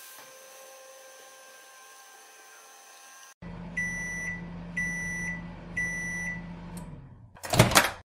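Just Like Home toy microwave running: a faint steady electronic hum, then about three seconds in a louder low hum with three high beeps about a second apart, signalling the cycle is done. Near the end a short loud click and rattle as the plastic door is opened.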